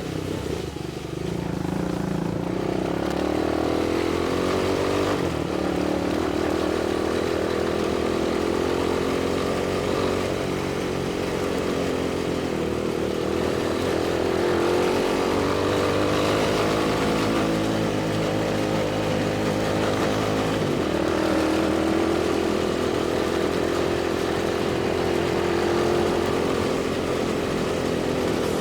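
Quad bike engine running under riding load, its pitch rising and falling as the throttle is opened and eased.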